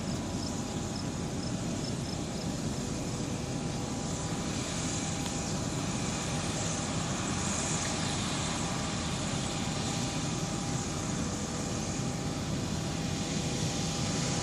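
Harvest machinery running steadily: an engine drone with fan noise, a few steady tones over it, growing slightly louder partway through.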